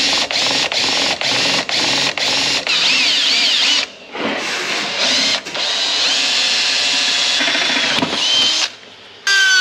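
Cordless drill boring holes into a steel turbo exhaust manifold runner for EGT thermocouple bungs. It starts in short trigger bursts, about three a second, then runs in longer spells with its pitch wandering as the bit cuts, and stops shortly before the end.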